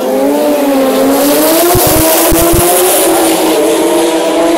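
Drag-racing motorcycle engine revving hard, its pitch climbing slightly and then holding steady.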